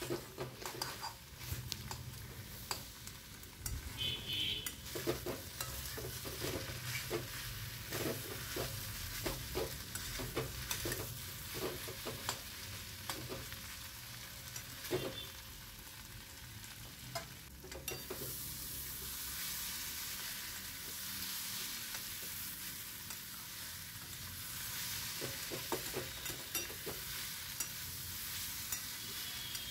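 Cauliflower stalks sizzling in oil in a metal kadai, slow-fried on low flame, while a metal spatula scrapes and knocks against the pan in repeated stirring strokes. The strokes bunch up in the first half and again near the end, with a stretch of steady sizzle between.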